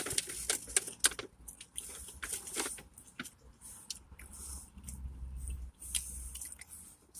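A person chewing food close to the microphone: irregular wet smacks and mouth clicks, with a low rumble about midway.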